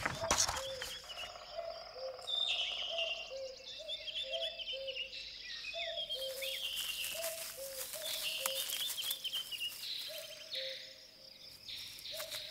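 Nature ambience: birds chirping over a steady high insect trill, with a low two-note call repeating about once a second. A short loud rustle comes right at the start, and the sounds thin out briefly near the end.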